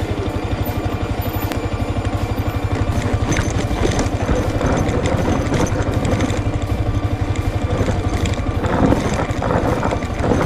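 Motorcycle engine running at low revs with a steady, even pulse as the bike rolls slowly down a loose dirt track.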